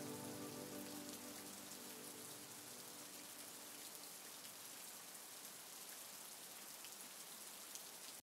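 Faint rain: a steady hiss with scattered small drop ticks, while the last held notes of a synth chord fade away in the first few seconds. It all cuts off suddenly just before the end.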